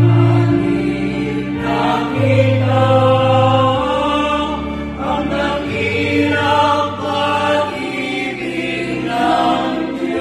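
Small mixed choir singing a hymn together, accompanied by an electric organ whose held bass notes change every second or two.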